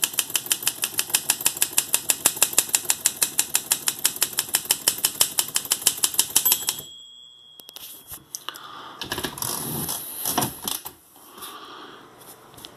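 Olympia Deluxe manual typewriter being typed on: rapid, evenly spaced key strikes at about seven a second for the first six or seven seconds. The bell then rings once, the typewriter's end-of-line warning. A couple of seconds later comes a burst of clattering and rattling from the carriage being worked.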